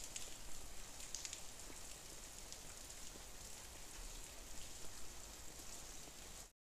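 Light rain falling on a parked scooter and into puddles: a faint, even hiss with scattered drop ticks, cut off suddenly just before the end.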